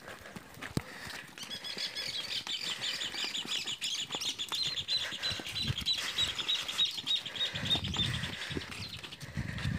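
A bird trilling: a fast, even run of high repeated notes that starts about a second in and stops shortly before the end. Under it, the hooves of a herd of cattle and people's footsteps scuff and thud on a dry dirt track, with heavier hoof thuds near the end.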